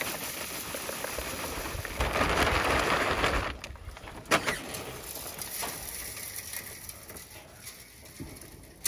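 Plastic sack of expanded vermiculite rustling as it is tipped and the loose granules pour out down a chimney flue, a rushing hiss that is loudest for about a second and a half, then drops away suddenly, with a sharp click just after.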